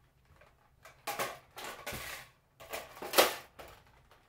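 Plastic Nerf blasters being handled: a few short bursts of plastic knocking and rustling, the loudest about three seconds in.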